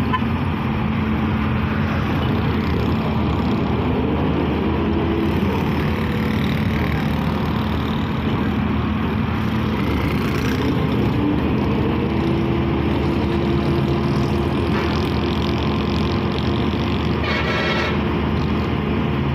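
Volvo EW145B wheeled excavator's diesel engine running steadily under load, its note stepping higher about two-thirds of the way through. A brief high squeal sounds near the end.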